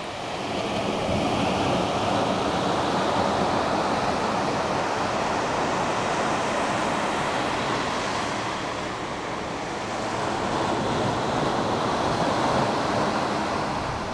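Sea surf washing onto a sandy beach: a steady rush of breaking waves that swells about a second in, eases off around nine seconds, and builds again near the end.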